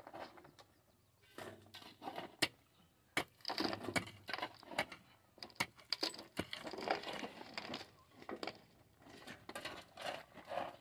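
Pickaxe striking and scraping rocky, gravelly ground, with irregular metal-on-stone clinks and crunches of loosened stones.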